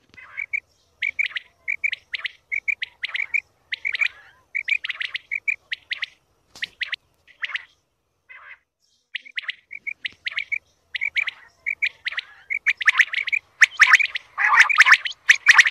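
Quail calls of the kind played as a hunting lure: short chirping notes repeated in little groups of two or three, mixed with harsher rasping notes. The calls grow denser and louder over the last few seconds, where they overlap.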